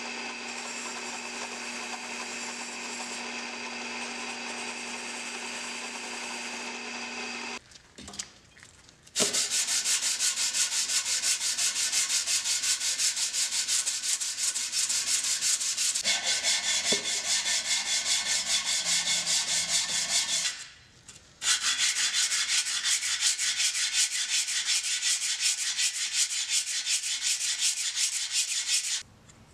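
A drill press with a wire wheel in its chuck runs with a steady motor tone for the first seven seconds or so. Then comes fast back-and-forth scratching as the cast-iron sole of a Stanley block plane is lapped flat on sandpaper, broken by a brief pause a little past the middle.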